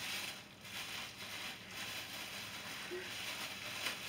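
Clear plastic bag crinkling and rustling in the hands, in uneven patches.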